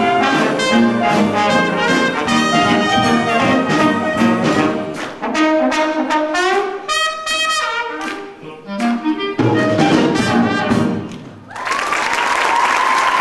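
Dixieland jazz band of trumpet, trombone and clarinet playing live; the tune breaks off about nine seconds in, and near the end the audience applauds before the sound cuts off.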